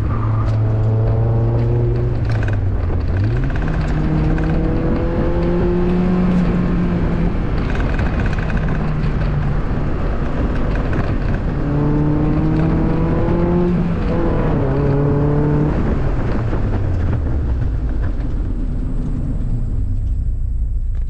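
2002 Mazda Miata's 1.8-litre four-cylinder engine pulling through an autocross course, its pitch rising several times under acceleration and jumping up once about three seconds in. Near the end the revs fall away as the car slows.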